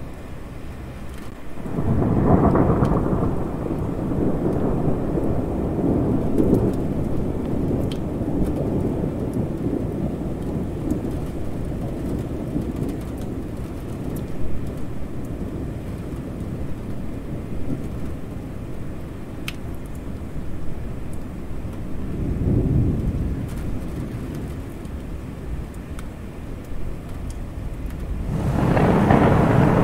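Thunder rolling over steady rain. A loud rumble builds about two seconds in and rolls on for several seconds, a softer one comes past the twenty-second mark, and another loud rumble swells near the end.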